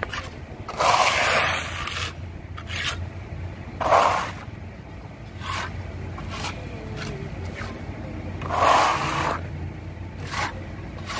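Steel trowel scraping and smearing wet Vetonit cement filler across a concrete wall, in repeated strokes. Three louder sweeps come about a second in, at about four seconds and near the end.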